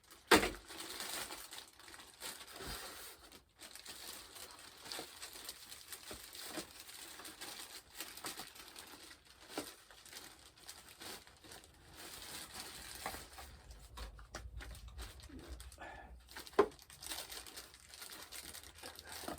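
Plastic packaging crinkling and rustling as a wrapped foam model part is cut open and worked free, with a sharp knock about half a second in and another late on.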